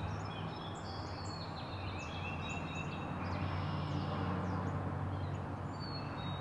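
Several songbirds chirping, with many short high calls and quick rising and falling notes, over a steady low outdoor hum.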